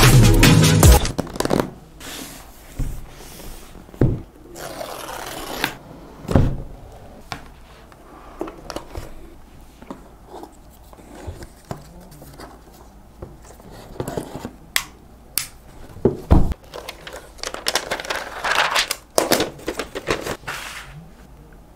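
Unboxing handling sounds: the laptop box's cardboard inserts and the protective paper wrap on a MacBook Pro being moved, scraped and peeled off, with scattered knocks and rustles. The intro music cuts off about a second in.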